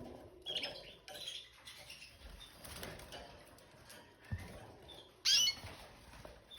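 Canaries in a cage: one loud chirp about five seconds in and a softer one near the start, with wings fluttering and faint hopping and scratching noises between, and a soft thump just past four seconds.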